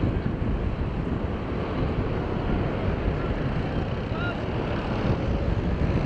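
A large forest fire burning: a steady, low rushing noise from the flames, with wind buffeting the microphone.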